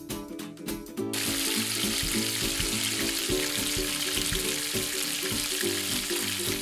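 Raw egg dropping into hot cooking oil in a tiny steel wok and frying, a steady sizzle that starts suddenly about a second in.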